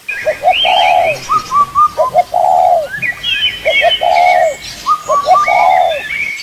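Birds calling in an aviary: one bird repeats a call of two short notes followed by a longer arched note, four times, while other birds chirp higher above it.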